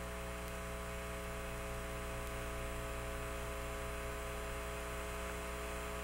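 Steady electrical hum with hiss on an open air-to-ground radio voice loop between transmissions. Several faint steady tones sit above the low hum, all unchanging.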